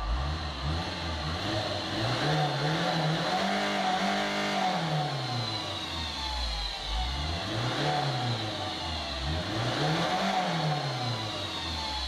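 Mercedes Vito van's diesel engine pulling under acceleration, heard from inside the cab, with the revs climbing. Its note rises and falls several times.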